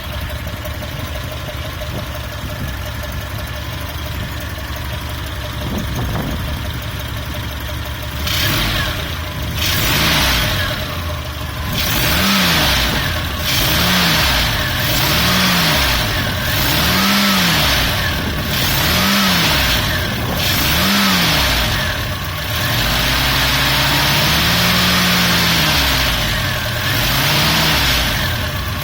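Volvo B20 four-cylinder pushrod engine idling steadily, then revved in short throttle blips about every two seconds, held higher for a few seconds, and blipped again. The engine has a clattering knock that the owner cannot place, wondering whether it is the valves.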